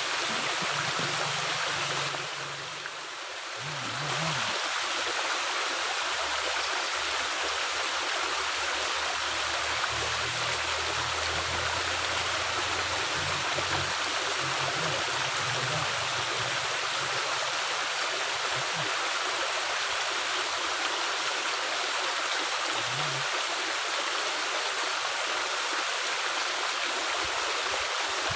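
Steady rush of water flowing through a culvert, dipping briefly in level a couple of seconds in.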